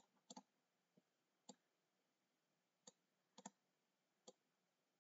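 Faint clicks of a computer mouse button, about seven spread unevenly, some in quick pairs, while drawing in a paint program.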